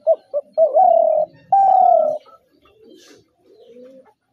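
Spotted dove cooing: two short notes, then two longer coos, the last one falling slightly. Fainter low cooing follows.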